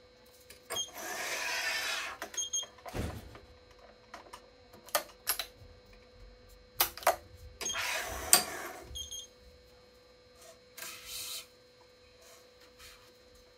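Badminton racket being strung on an electronic stringing machine: two rasping swishes of string and mechanism, with sharp clicks of the clamps and tension lever in between and a faint steady hum underneath.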